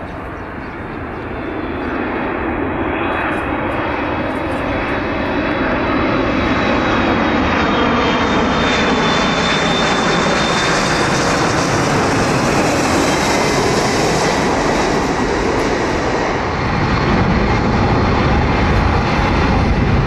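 Jet engines of a China Southern Airbus A330 on final approach passing low overhead. The rush of engine noise grows louder, with a high fan whine that sinks slightly in pitch as the plane goes by. A deeper jet rumble takes over for the last few seconds.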